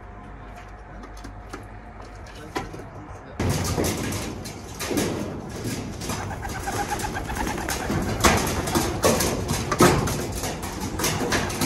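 Domestic pigeons cooing. The sound gets suddenly louder and busier about three seconds in, with many short clicks and knocks among the calls.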